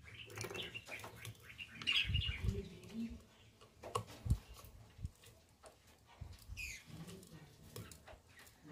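Light clicks, rustles and knocks of fan wires being handled and pushed into a terminal block, with a low thump about four seconds in. A short falling chirp comes near the end.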